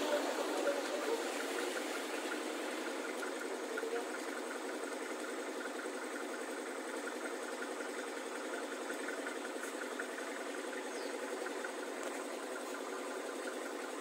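An engine idling steadily with an even, fast rhythm.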